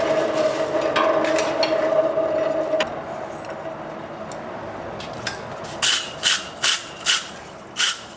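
A coal forge's blower running with a steady hum, which stops about three seconds in. From about six seconds, rhythmic wire-brush strokes, about two and a half a second, scrub scale off the red-hot chain link before it is fluxed for a forge weld.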